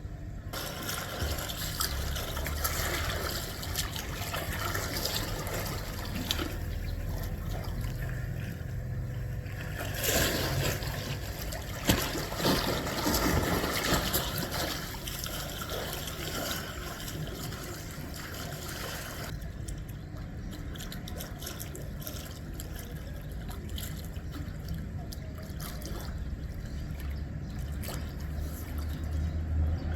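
Water trickling and running steadily over a low steady rumble, fuller and louder for several seconds in the middle.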